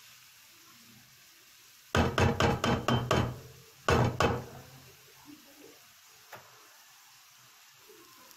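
A spatula knocking against a frying pan while breaking up minced meat. There is a quick run of about six knocks about two seconds in, then two more a second later, over the faint sizzle of the meat frying.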